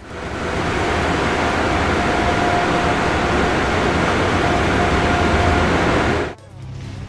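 Cartoon car-wash sound effect: a steady rushing hiss over a low rumble, with a faint whine, that cuts off suddenly about six seconds in.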